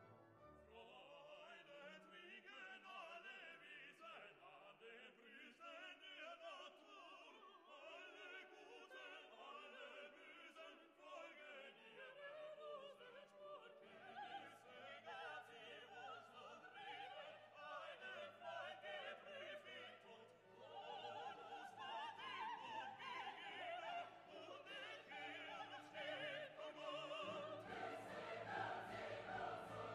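Quiet classical background music: operatic singing with orchestra, growing fuller with deeper notes about halfway through and again near the end.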